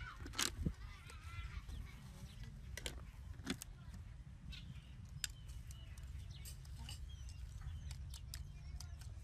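Scattered sharp clicks and taps as a plastic jar and lid, then a spoon and bowl, are handled. Short bird calls chirp over a steady low rumble.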